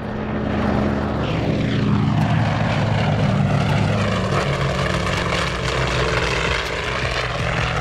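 Grumman S-2 Tracker airtanker's twin propeller engines running as it flies low past, the pitch falling as it goes by.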